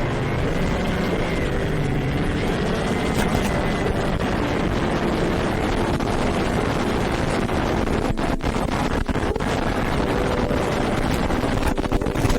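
FPV racing quadcopter's motors and propellers whirring in flight, a steady whine with the pitch wavering as the throttle changes, dipping briefly a few times about eight to nine seconds in.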